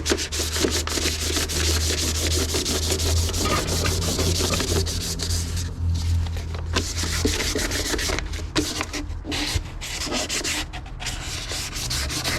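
1000-grit sandpaper rubbed by hand over the engine bay's painted sheet metal in continuous back-and-forth strokes, scuffing the factory paint so new paint will stick. It pauses briefly a few times. A low steady hum runs underneath.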